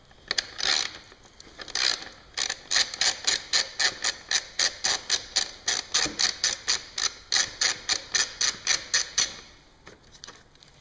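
Hand ratchet clicking at an even pace, about four clicks a second, as a screw is backed out of the fairing's inner bracket; a few single clicks come first, and the run stops about nine seconds in.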